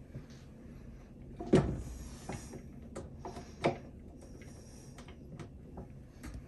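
KitchenAid tilt-head stand mixer being handled as its stainless steel bowl is twisted to free it from the base: metal clunks and rattles, with two louder knocks about one and a half and three and a half seconds in and lighter clicks between.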